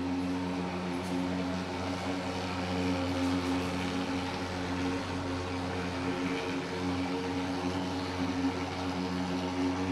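Portable thermal fogging machine running with a steady engine drone as it blows out a cloud of insecticide fog.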